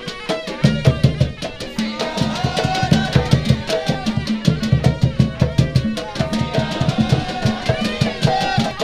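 Live Emirati folk-dance music: a group of large hand-beaten drums playing a fast, steady beat, with a melody line wavering over it.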